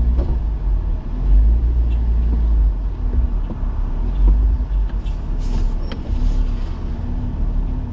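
Jeep Wrangler's engine running with a deep, steady low rumble, heard from inside its cab.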